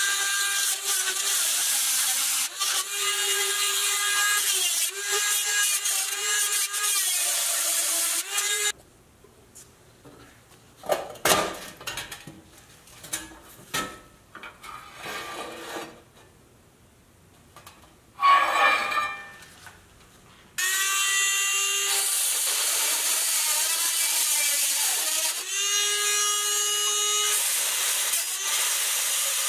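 Small handheld rotary tool running against the rusted pressed-steel frame of a toy truck trailer, its high whine wavering in pitch as it bites. About a third of the way in it stops, and there is a stretch of light clicks and clatter of loose metal parts being handled, with two sharp clanks. It starts up again about two-thirds of the way in.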